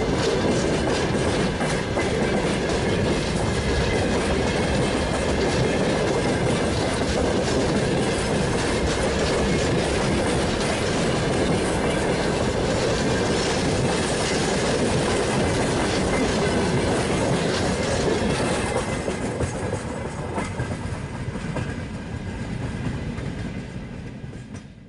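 Broad-gauge freight wagons, open gondolas and boxcars, rolling past close by, their wheels clattering steadily over the rail joints. The noise fades away over the last several seconds as the tail of the train passes.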